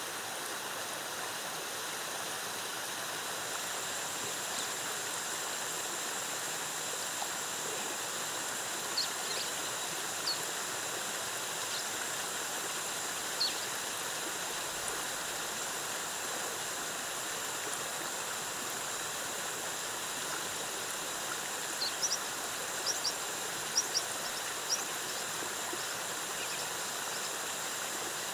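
Waterfall cascading in a steady rush of water. A thin high tone joins a few seconds in. Brief high chirps sound a few times in the middle and in a quick cluster near the end.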